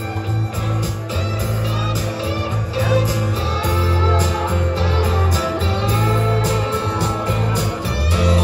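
Guitar music playing.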